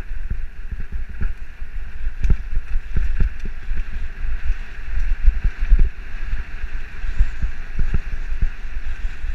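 Wind buffeting a helmet-mounted camera's microphone as a mountain bike rides fast down a dirt trail, a heavy rumble broken by frequent irregular knocks and rattles from the bike jolting over roots and bumps.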